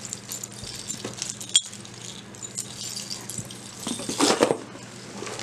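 Costume jewelry handled by hand: beads and metal links of a beaded necklace clinking and rattling lightly, with one sharp click about a second and a half in and a louder burst of handling around four seconds in.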